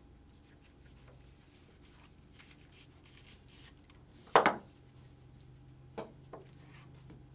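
Buckles and fittings of a Dräger SCBA harness clinking and knocking as the pack is handled and its waist belts are unthreaded. There are scattered light clicks, and one sharper knock about four seconds in is the loudest.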